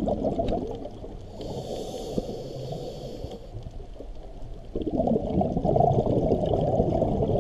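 Scuba diver breathing through a regulator underwater: a rumbling, crackling rush of exhaled bubbles, then a quieter pause with a short hiss of inhalation through the demand valve, and a second loud burst of exhaust bubbles starting just before 5 seconds in.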